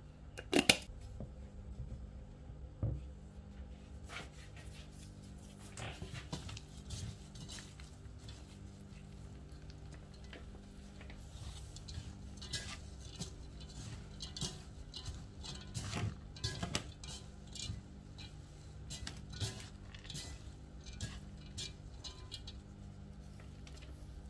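Gloved hands mixing cooked rice and shredded chicken in a nonstick pot. Irregular clicks and knocks against the pot come with a crackly rustle of the rice, and one sharp knock about a second in is the loudest. A steady low hum runs underneath.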